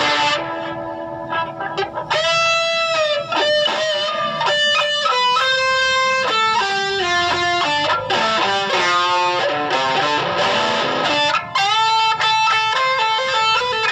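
Electric guitar played through a Mooer GE100 multi-effects processor: a lead line of single sustained notes, several bent up and down in pitch and held with vibrato.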